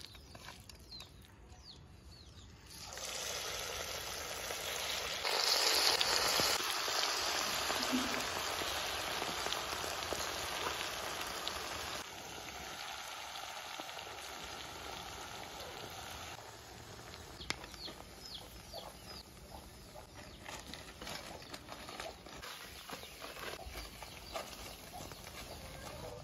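Spice-coated chicken pieces deep-frying in hot oil in a kadai. The sizzle starts about three seconds in as pieces go into the oil, is loudest for several seconds, then settles to a quieter steady sizzle with small pops. Faint bird chirps are heard now and then.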